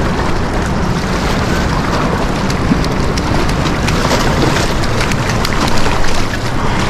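Loud, steady rush of flowing river water, with wind rumbling on the microphone and a few faint splashy ticks.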